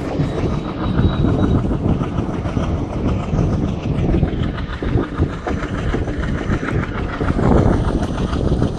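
Passenger train coaches running at speed, heard from an open coach doorway: a steady rumble of wheels on the rails with a clickety-clack over the rail joints.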